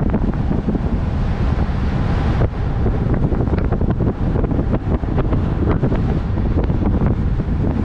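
Heavy wind buffeting the microphone of a camera on a moving vehicle, a dense low rumble with constant short gusts, over the vehicle's road noise.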